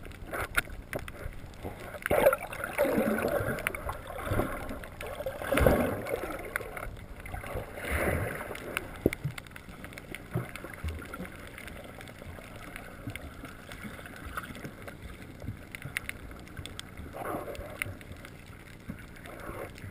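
Muffled underwater sound picked up through a GoPro's waterproof housing: water swirling and gurgling, with irregular surges and scattered small clicks.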